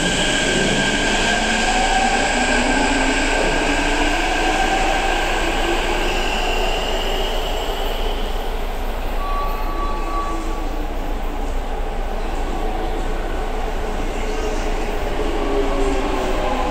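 Electric subway train pulling out of an underground station. Its motor whine rises in pitch and fades as it accelerates away, with wheel squeal. Near the end a new whine begins, falling in pitch as another train comes in.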